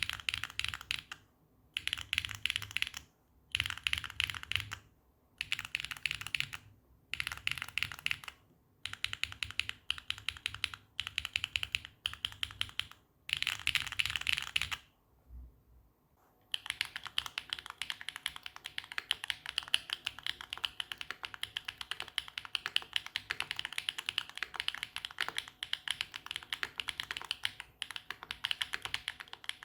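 Mechanical keyboard with HMX Snowfall tactile switches (long-pole POM stems) being typed on: short bursts of rapid clacky keystrokes, each about a second long and a second apart, on an FR4 plate without foam. After a short pause about halfway through, continuous fast typing follows on a carbon-fibre plate with full foam.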